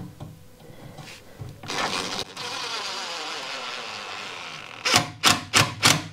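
Cordless drill-driver driving a screw through a homemade metal bracket into a wooden bench slat, the screw drawing a not-quite-bent bracket tight. The motor runs steadily for about three seconds, then comes in short sharp bursts about three a second near the end.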